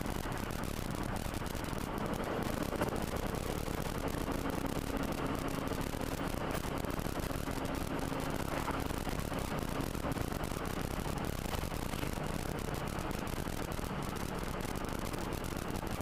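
Steady road and engine noise inside a moving car's cabin, picked up by a windscreen dashcam, with a faint steady hum for several seconds in the middle.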